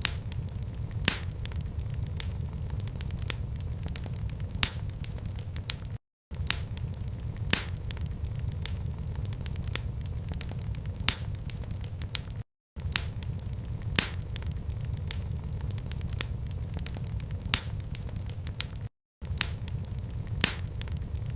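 Wood fire crackling in a fireplace: a steady low rumble with sharp pops every second or two. The sound cuts out for an instant three times, about six seconds apart.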